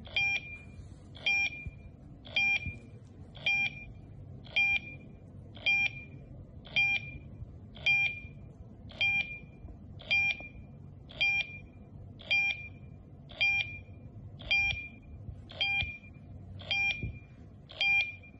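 Tuya Wi-Fi/GSM/PSTN alarm panel beeping while it waits to pair with the Wi-Fi network: a short, high beep repeating evenly about once a second, some seventeen times.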